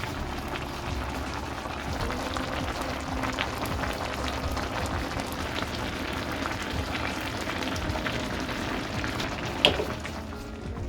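Food cooking on the stove: a steady bubbling crackle, with a single sharp clink near the end.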